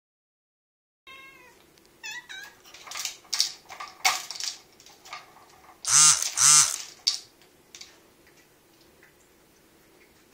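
Domestic cat meowing several times while it bats at the spinning plastic tubes of a treat-dispensing puzzle feeder, with rattling clicks from the toy. The two loudest calls come close together about six seconds in.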